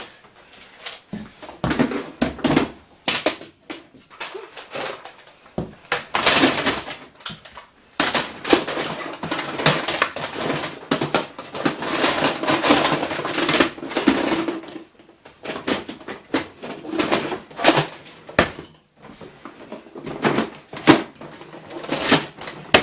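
Plastic Nerf blasters being handled: irregular clattering, knocks and clicks of hard plastic parts, with rustling in between.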